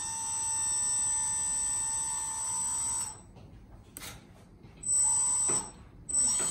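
Hydraulic pump on a Lesu 6x6 radio-controlled dump truck running with a steady high whine as it works the three-way tipper bed. It stops about three seconds in, a click follows, then it runs again briefly near five seconds and starts once more just before the end.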